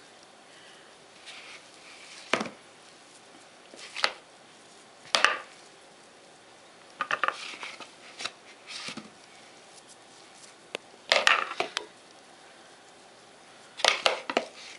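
Metal spoon scraping and knocking against a plastic bowl while scooping sticky cottage-cheese dough, in short separate strokes every second or two, with a quick cluster of clicks in the middle and the loudest knocks near the end.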